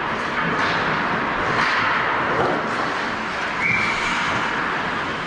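Ice rink game noise: a steady scraping hiss of skates on ice with scattered sharp clacks of sticks and puck, and a brief high steady tone a little past the middle.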